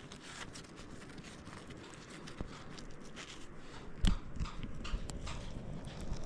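Stones and rock fragments clicking, knocking and scraping against each other as a crystal pocket is dug out, with one louder knock about four seconds in.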